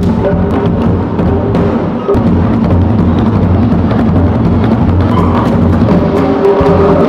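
Polynesian drum ensemble playing a fast, continuous beat: tall pahu drums struck by hand over smaller drums rattled with sticks.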